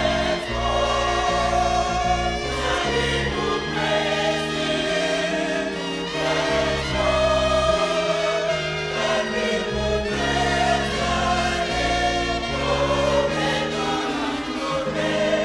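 Closing gospel music: a choir singing over sustained instrumental chords and a bass line.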